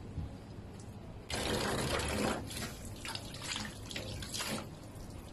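Water splashing in a steel sink as it is thrown by hand over a small dog being bathed. It starts suddenly about a second in, then carries on as several shorter splashes.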